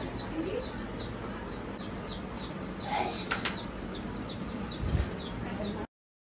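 A small bird chirping rapidly and steadily, short high downward chirps several times a second, with a couple of soft knocks; the sound cuts off abruptly near the end.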